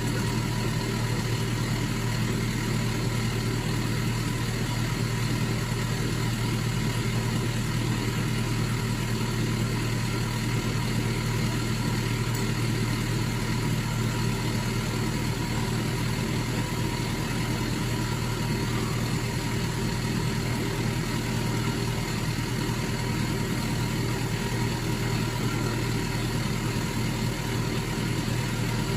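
Lorry engine running at a steady, even speed with a constant low hum.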